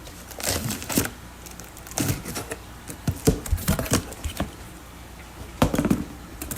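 Irregular rustling, clicking and knocking from handling a fish shipment's packing: plastic fish bags and the shipping box being moved and opened. The sounds come in short clusters with gaps between them.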